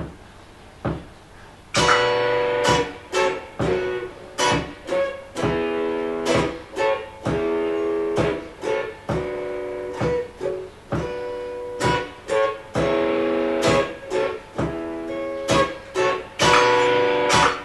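Electric guitar (a Telecaster) played through a Marshall combo amp, strumming chords: a single strum, then about two seconds in a steady, syncopated rhythm of repeated chord strokes with ringing chords between them.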